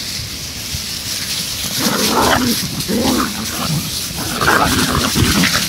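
Pinscher dogs at play, growling and yapping in short, irregular bursts from about two seconds in, over a rustling of dry leaves.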